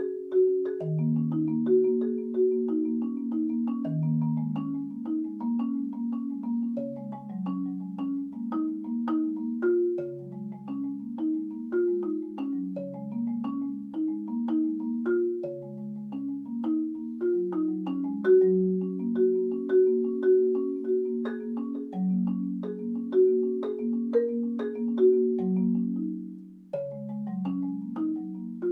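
Solo MarimbaOne padauk-bar marimba improvisation: a flowing stream of mallet-struck notes and chords, mostly in the low and middle register, each note ringing briefly. The playing eases off for a moment just before the end.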